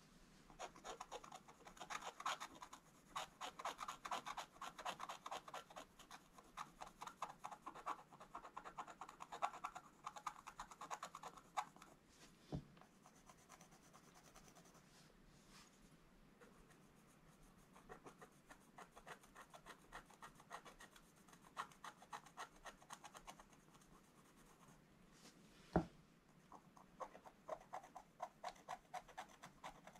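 Wooden stylus scratching the coating off scratch-art paper in runs of quick, short strokes, with a lull of a few seconds near the middle. A single soft knock comes near the end.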